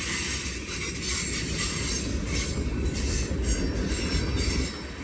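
Freight train of hopper cars rolling past, a steady rumble of wheels on rail that drops in level near the end.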